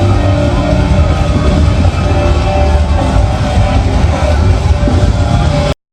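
Loud music blasting from a large festival sound system, with strong deep bass. It cuts out abruptly right at the end.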